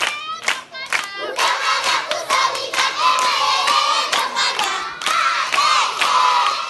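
Large group of schoolchildren singing loudly together while clapping in time, about two claps a second. The voices swell in about a second in, over the steady clapping.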